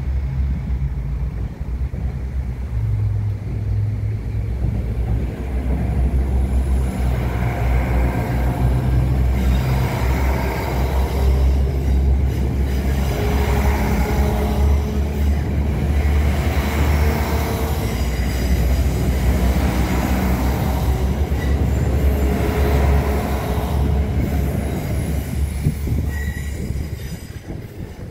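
A NI Railways diesel multiple unit passing close by over a level crossing: a loud, low engine drone with the run of wheels on the rails. It grows a few seconds in, rises and falls every three or four seconds as it goes by, and fades away near the end.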